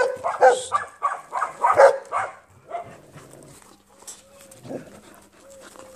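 A dog making excited whines and yelps for the first two seconds or so, then quieter, thin whimpers near the end.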